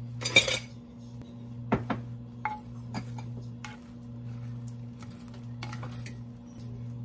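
A plastic rice paddle scraping and tapping against a glazed clay rice pot as freshly cooked rice is fluffed, with a loud clatter just after the start, a few sharp taps about two to three seconds in, and another scrape near the end. A steady low hum runs underneath.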